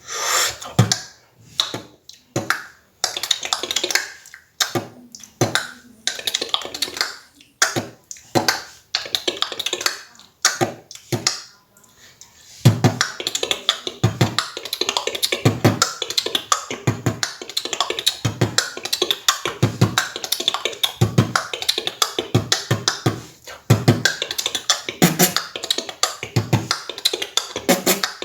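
Solo beatboxing. It starts as a sparse run of separate sharp mouth sounds with pauses between them, then about twelve seconds in turns into a continuous, fast beat with regular deep kick-drum sounds.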